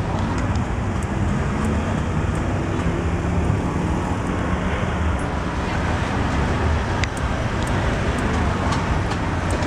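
Steady rumble of street traffic, with a few sharp clicks scattered through it.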